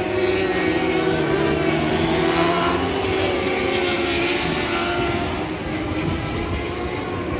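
Several Lightning Sprint race cars with 600cc motorcycle engines running together around a dirt oval. Their overlapping engine notes rise and fall as the cars lap.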